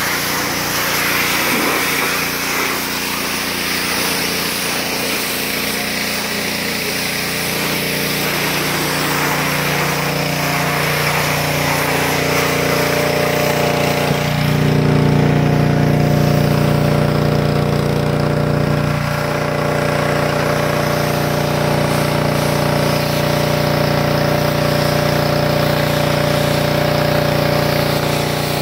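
Pressure washer running and spraying water with a steady hiss. Partway through, the motor's sound steadies into a louder, even hum.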